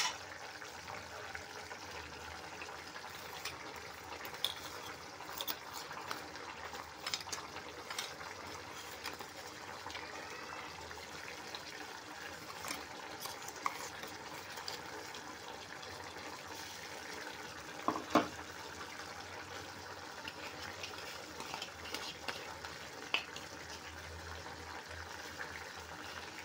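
Brinjal gotsu, a tamarind-and-jaggery gravy, boiling in a kadai on a gas stove: a steady bubbling hiss with scattered small pops. A sharp knock about 18 seconds in.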